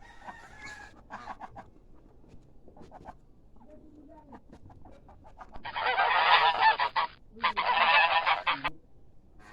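Domestic geese honking in two loud bursts, each about a second and a half long, near the end, after a few faint scattered calls.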